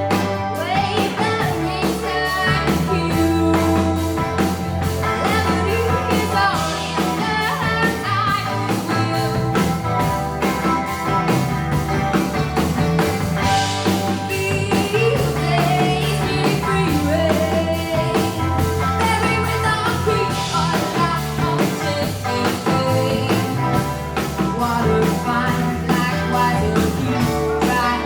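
Live pop-rock band playing: Gretsch electric guitar over bass and a drum kit keeping a steady beat.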